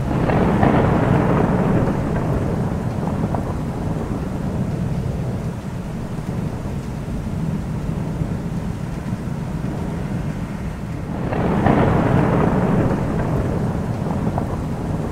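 Thunder rolling over steady rain. A long rumble swells at the start and dies away over several seconds, and a second roll comes about eleven seconds in.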